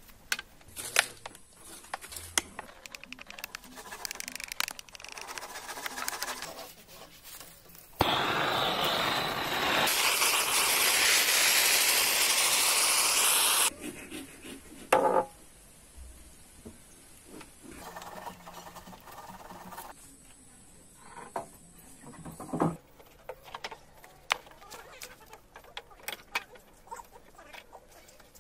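Wooden boat-frame timbers knocking and scraping as they are handled and clamped, in scattered sharp knocks. About eight seconds in, a loud steady rushing noise starts abruptly, runs for about six seconds and cuts off suddenly.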